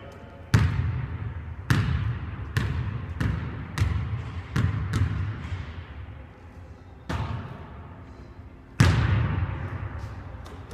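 A basketball bouncing on a hardwood gym floor and striking the wall, about nine hard thumps at uneven spacing, the loudest near the start and near the end. Each thump echoes in the large hall.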